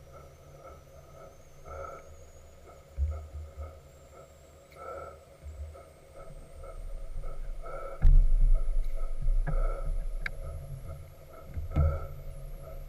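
Steam launch machinery running at a slow, even pace, with a soft beat about every one and a half to two seconds. From about eight seconds in, low rumbling thumps are louder than the beat.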